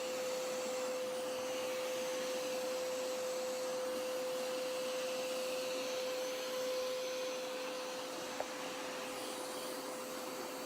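Hoover Power Scrub Elite Pet carpet washer running with its hand hose tool attached: a steady motor drone and airy suction hiss with a constant whine, and a single brief click about eight seconds in.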